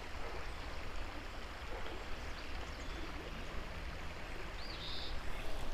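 Steady rushing of a shallow creek spilling over many tiny waterfalls.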